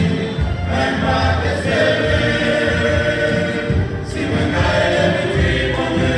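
Men's choir singing a Christian song a cappella, in harmony through handheld microphones.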